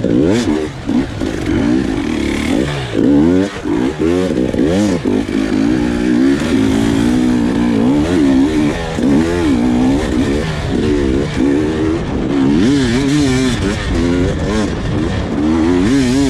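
Husqvarna TE300 two-stroke enduro motorcycle engine being ridden hard off-road. The engine note rises and falls over and over as the throttle is worked on and off.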